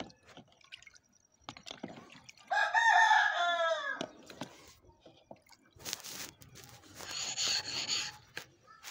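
A grey abrasive block scrubbed over a wet red sharpening stone to roughen its surface: a rasping scrape about six seconds in, lasting two seconds. Before it, the loudest sound is one drawn-out call about a second and a half long that falls in pitch at its end.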